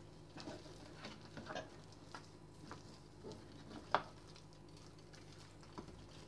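Hands rubbing spice mix into the skin of a whole raw duck: faint, scattered patting and squishing of skin on skin, with a sharper tap about four seconds in.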